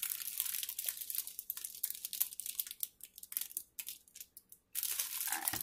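Clear plastic wrapping around a bundle of bagged diamond-painting drills crinkling as it is handled and turned over. The crinkling goes on and off, with a brief pause near the end before it starts again.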